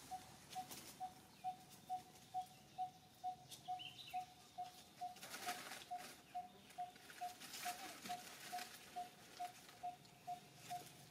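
A bird repeating one short, clear note at the same pitch, evenly a little over two times a second, with a few brief rustles about five and a half and eight seconds in.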